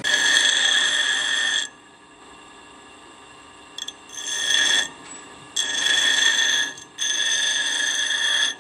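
Bench grinder wheel grinding a motorcycle drum brake shoe, in four spells of loud, high-pitched screeching grinding of a second or so each as the shoe is pressed to the wheel and eased off. In the gaps the grinder runs on with a quiet hum.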